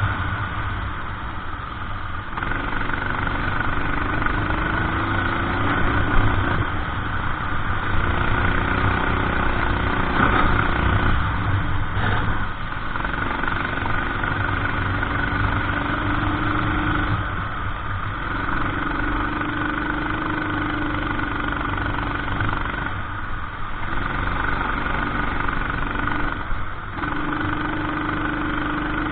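Racing kart engine running hard on a lap, its note dropping briefly about every five seconds as the driver lifts or brakes for a corner, then climbing again under acceleration, over a steady rush of wind and tyre noise.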